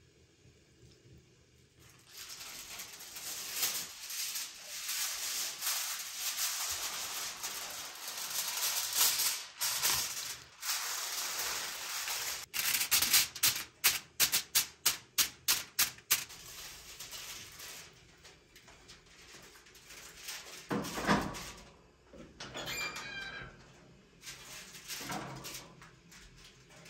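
Aluminium foil crinkling as it is spread and pressed over a glass baking dish, with a quick run of sharp crackles about midway. Later, a knock and a short rising squeak.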